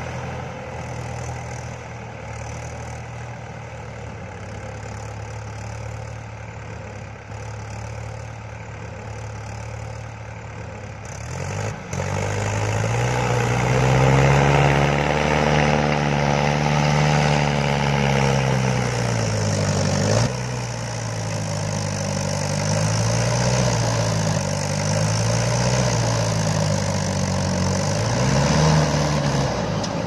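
Diesel engines of an overloaded farm tractor and a JCB backhoe loader running steadily at first. From about 12 seconds in a louder engine revs up and down again and again, working to get the loaded trolley up the slope.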